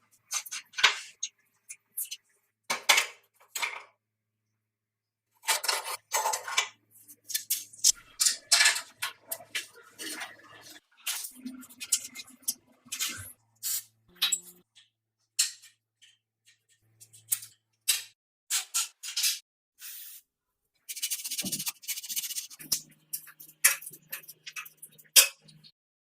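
Hand work on metal parts: a string of short metallic clinks, knocks and scrapes, with a few longer hissing bursts, and brief pauses between the bits of work.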